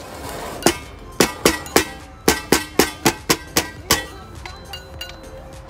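Outdoor playground drum slapped by hand about eleven times in quick succession, each hit sharp with a short ringing tone. The hitting stops about four seconds in.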